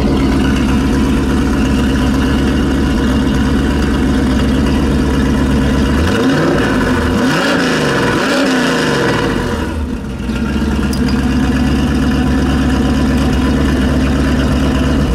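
1990 Chevrolet Corvette C4's V8 idling, heard at the tailpipe, with about three revs a little past the middle before it settles back to a steady idle.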